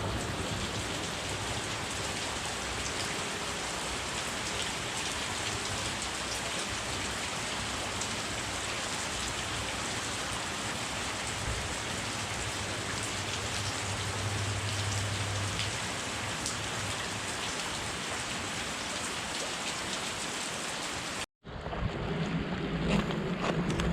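Steady, heavy rain falling during a passing thunderstorm. It stops abruptly about 21 seconds in, and a lighter, steady rush follows.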